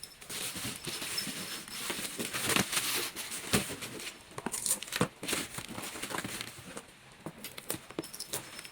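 Packaging crinkling and rustling, with irregular light clicks and taps, as shoes are handled and unpacked.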